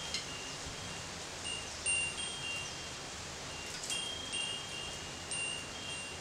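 Hanging metal wind chime of three small bells ringing lightly several times, high clear tones that come and go, over a steady hiss of rain.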